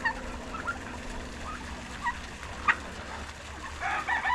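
Poultry, a turkey hen among chickens, giving scattered short chirps and clucks, with a busier flurry of calls near the end.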